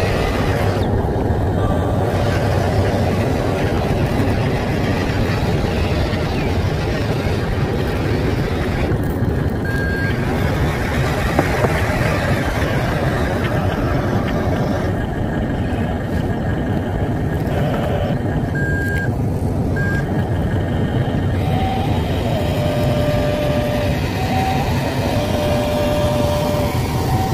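Radio-controlled dump truck with a steady engine-like rumble and short electronic beeps now and then, several of them near the end, as it drives and tips its load.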